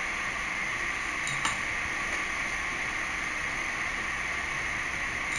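Steady hiss of background noise, with one small sharp click about a second and a half in as the rotor is fitted onto the viscometer's spindle coupling.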